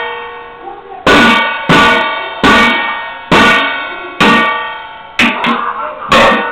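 A baby banging a toy or object over and over, about one loud strike a second, each strike ringing on and fading before the next.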